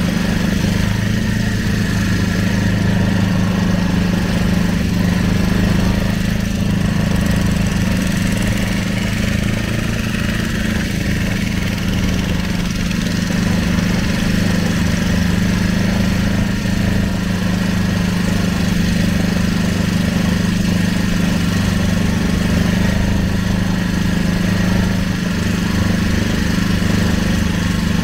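Small wooden river boat's motor running steadily at constant speed, a low even hum with no change in pitch.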